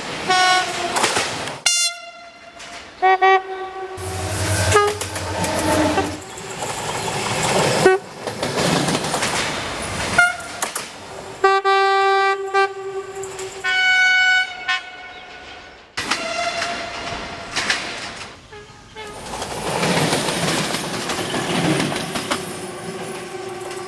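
A montage of diesel train horns, a string of short blasts cut one after another, some sounding a single note and some a chord, with passing trains running by on the rails in between.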